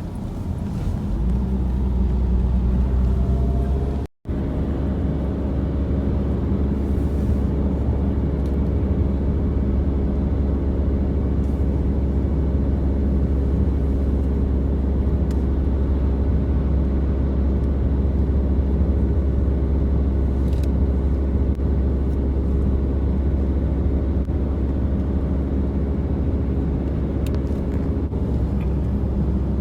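Steady low engine rumble with a continuous hum, broken by a brief dropout about four seconds in.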